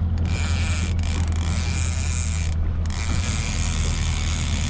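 Evinrude 115 outboard motor running steadily at trolling speed, with a fast mechanical ratcheting from a fishing reel as a hooked fish is worked in.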